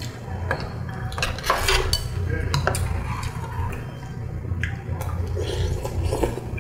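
Metal spoons and chopsticks clinking and scraping against soup bowls and a stone pot as people eat soup: a handful of separate clicks and clinks, several together a little over a second in, over a steady low hum.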